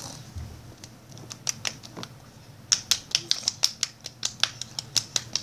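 A run of short, sharp clicks: a few scattered ones at first, then a steady string of about three to four a second from a little past halfway.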